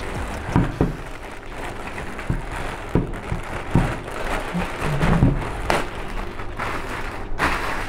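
Clear plastic bag crinkling and rustling as a cycling helmet is pulled out of it, with several louder crackles along the way.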